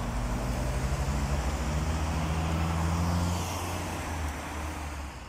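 Car driving across a railroad level crossing, its engine humming steadily as it passes, with more road traffic behind it. The sound fades out near the end.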